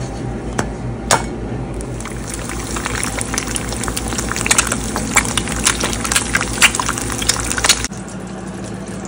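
Eggs frying in hot oil in a pan: a steady sizzle with many sharp crackles and pops, which cuts off suddenly near the end. Two sharp clicks come in the first second or so.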